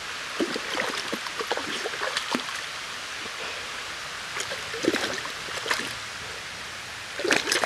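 A shallow stream running, with light splashes as a dog wades in the water, and a bigger splash near the end as it lunges forward.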